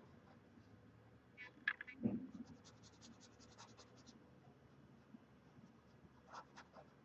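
Felt-tip marker squeaking and scratching across paper as lines are inked, faint. There is a soft bump just after two seconds in, the loudest moment, followed by a quick run of light ticks.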